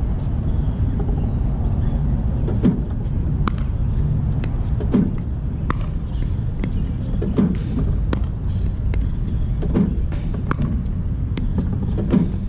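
Spinshot pickleball ball machine firing a ball about every two and a half seconds, each launch followed under a second later by the sharp pop of a paddle volleying it back, over a steady low rumble.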